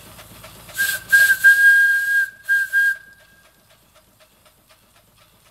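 The steam whistle on a quarter-scale model 1915 Case steam traction engine blowing a series of short blasts around one long one, a single steady high note that stops about three seconds in. A light, even ticking about five times a second runs on underneath.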